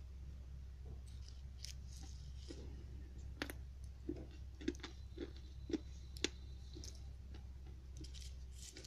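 Crunching bites and chewing of a thin dried disc of slate-pencil paste. Starting about three seconds in, sharp cracks come at intervals, with soft crunches roughly every half second between them. Fainter crackles follow near the end. A steady low hum sits underneath.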